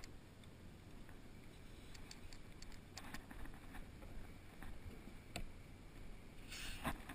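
Kayak paddle strokes: the blade dipping and splashing in the water with drips and a few light clicks, and a louder splash near the end.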